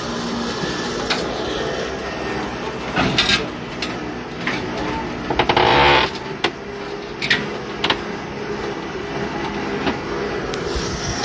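A flatbed tow truck's engine running steadily while a crash-wrecked SUV is loaded onto its tilted deck, with several sudden metallic knocks and clanks, the loudest about six seconds in.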